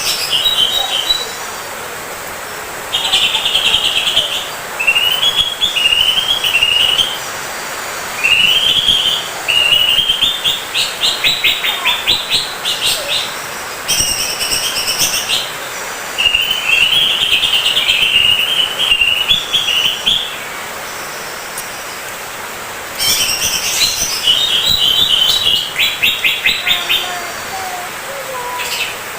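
Cucak ijo (greater green leafbird) in full song: bursts of fast, varied chirping phrases with rapid rattling trills, broken by pauses of a few seconds.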